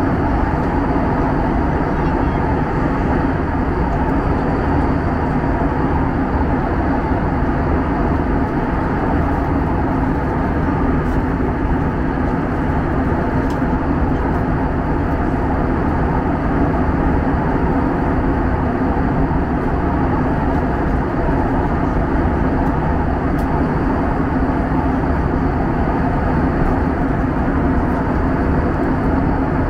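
Steady cabin noise of an Airbus A321 in cruise: the even rush of airflow and jet engines heard inside the cabin, with a low steady hum.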